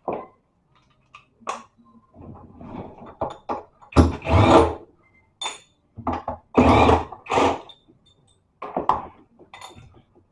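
Irregular knocks, clatter and scraping from handling a washing machine motor and the machine's metal parts, the loudest rubbing clatters about four and seven seconds in.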